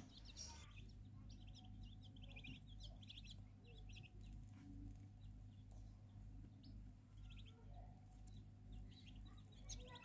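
Faint, high peeping from downy swamp-bird chicks, a rail chick and a snipe chick, coming in short cheeps every second or so over a low steady hum.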